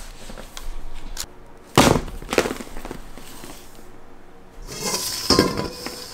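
Kitchen handling sounds: a few sharp knocks and clinks of dishes or utensils, the loudest about two seconds in, then a short burst of clatter near the end.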